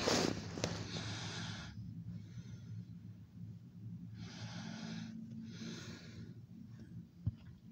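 A person breathing close to the microphone: several breaths, each about a second long, with a louder one near the start and a longer pause in the middle, over a faint steady low hum.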